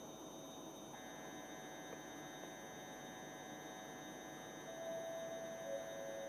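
Steady electrical hum and whine with a light background hiss. A higher tone comes back about a second in, and a lower tone joins near five seconds.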